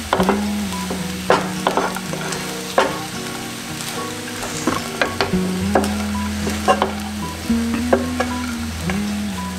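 A spatula scraping and knocking against a nonstick frying pan as it stirs and tosses fried rice, with irregular sharp strokes about every second over the frying.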